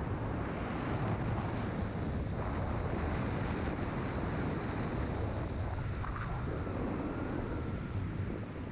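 Steady wind noise on the microphone of a camera carried by a speedflying pilot in flight: rushing airflow buffeting the mic, strongest in the low range.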